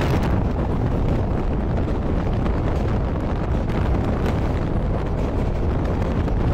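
Passenger train running at speed across a railway bridge, heard from an open coach door: a steady rumble of wheels on rails under a heavy rush of wind on the microphone.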